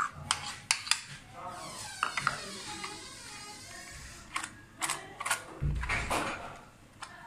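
A metal spoon clicking and scraping against a plastic plate as mayonnaise is spread over a paratha: a string of sharp taps, with a smooth sweeping sound in the middle and a low thump about six seconds in.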